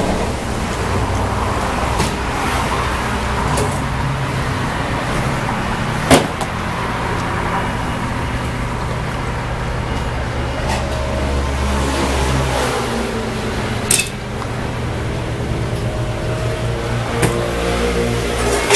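Steady low rumble of road traffic, with two sharp knocks about six and fourteen seconds in.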